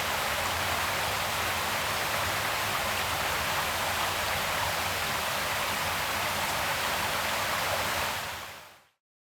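Creek water flowing in a steady rush, fading out to silence about eight seconds in.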